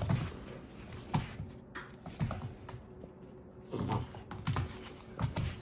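Young pit bull puppy's claws clicking irregularly on a hard vinyl-plank floor as it walks and turns about.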